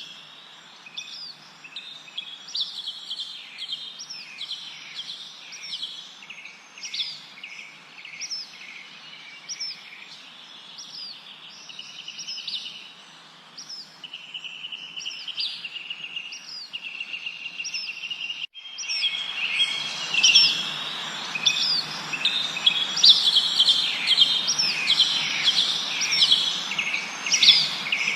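Songbirds chirping and trilling, many short repeated notes from several birds over a steady background hiss. About two-thirds through there is a brief break, after which the chirping and the hiss are louder.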